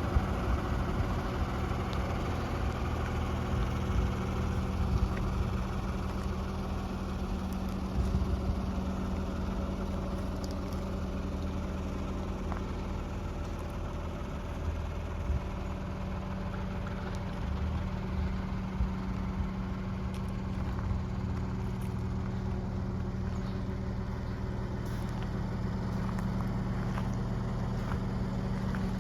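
Diesel engine of a Volvo EW160C wheeled excavator running steadily at idle, with a few brief knocks.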